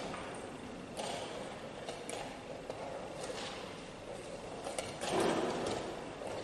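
Steady background room noise with a few faint knocks, and a louder shuffling rustle about five seconds in.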